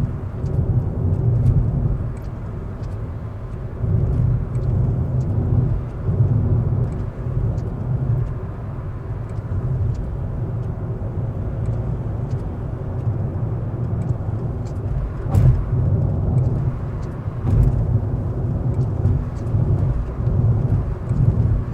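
Ford Focus Mk2.5 on the move, heard from inside the cabin: a steady low road and drivetrain rumble with faint, irregular clicks and ticks scattered through it. These are the kind of abnormal passenger-side rattle the car is being recorded for.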